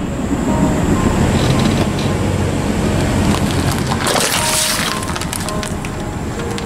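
A car tyre rolls onto a plastic bottle of red drink, which cracks and bursts in a short spray about four seconds in. Background music plays throughout.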